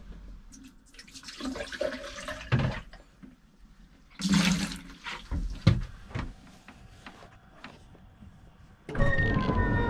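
Leftover pink RV antifreeze being poured down the camper's sink and toilet drain traps: short splashing, gurgling bursts of liquid with a few knocks, the biggest splash about four seconds in. About nine seconds in, a louder steady sound of several held tones begins.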